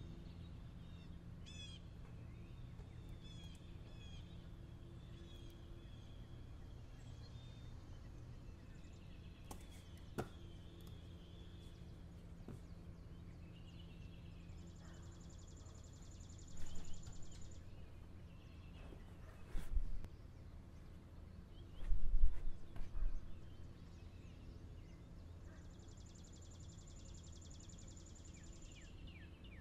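Quiet room ambience with a steady low hum and a few short bird chirps from outside. A buzzy high trill sounds twice, and several dull thumps fall in the second half, the loudest about 22 seconds in.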